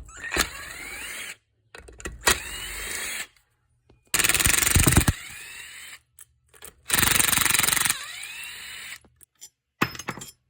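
Electric power driver run in four short bursts, each spinning up with a rising whine; the third and fourth open with about a second of loud rattling. This is the driver backing out fasteners while tearing down the mower engine.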